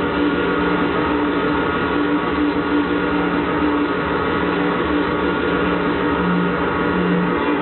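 Live industrial power-noise music: a loud, dense wall of distorted noise with steady droning tones underneath.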